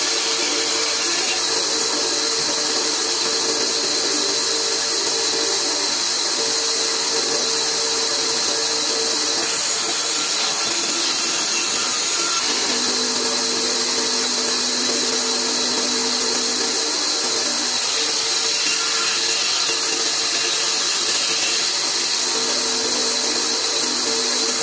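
Large old open-wheel bandsaw running and ripping a long wooden board: a steady hissing rush from the cut, with a humming tone that comes and goes as the board is fed through the blade.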